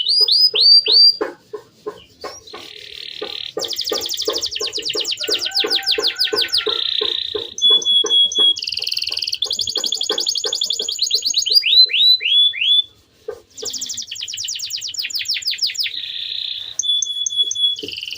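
Male domestic canary singing a long rolling song: fast trills, buzzy phrases and runs of quick downward-sliding notes, with brief pauses about a second and a half in and again near the 13-second mark.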